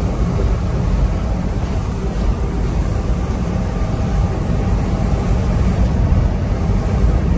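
Steady low rumble of engine and road noise heard inside the cab of a moving vehicle.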